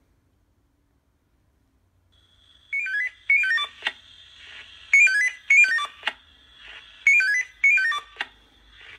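Fire station alarm chime through a speaker: after about two seconds of quiet, a steady high tone starts, and runs of electronic notes stepping down in pitch sound in three pairs, each pair about two seconds apart. It is the station alert that comes before a dispatch call.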